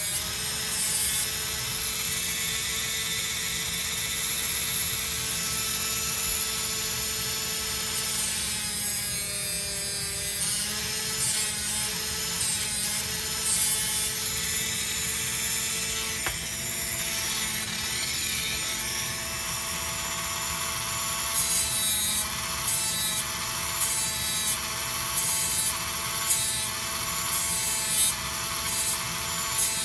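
Dremel rotary tool on a flex shaft running steadily while its bit grinds down a wooden dowel plug in a guitar body's bridge post hole. The motor's pitch dips briefly about nine seconds in, and in the last third the grinding comes in short repeated strokes.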